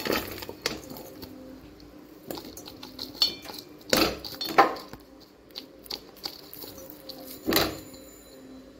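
Pounded jaggery scraped off a ceramic plate into a stainless-steel pot: the plate clinks and knocks against the pot rim as the lumps drop in, with a few louder knocks about four seconds in and again near the end.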